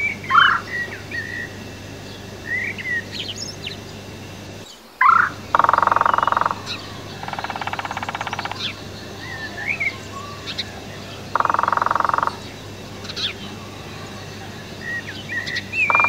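Small birds chirping, with four bursts of rapid woodpecker drumming, each drum roll lasting about a second.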